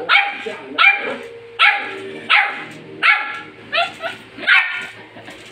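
A small dog barking repeatedly, about seven sharp barks evenly spaced roughly every two-thirds of a second.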